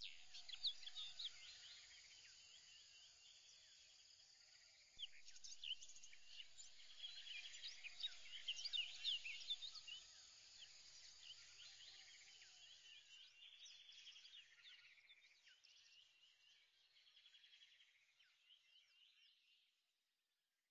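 Faint chorus of birds chirping, many quick high chirps overlapping, growing busier about five seconds in and then fading out shortly before the end.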